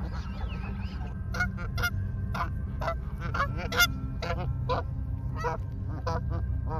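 A flock of Canada geese honking: a quick run of short, repeated calls, about three a second, starting about a second and a half in, over a steady low rumble.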